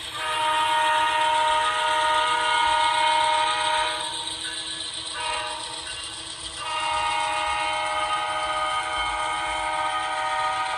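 Diesel locomotive horn sounding a chord: a long blast, a short one about a second later, then another long blast.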